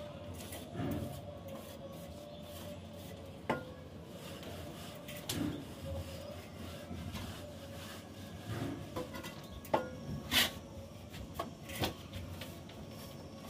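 Mason's hand trowel rubbing and scraping across wet cement plaster on a ceiling, with scattered sharp clicks and knocks from the tool, the loudest a little after the middle.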